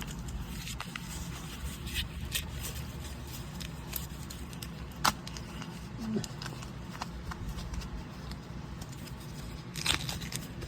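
Packaging of a replacement saw trigger switch being opened: crinkling and tearing, with scattered taps and one sharp click about five seconds in.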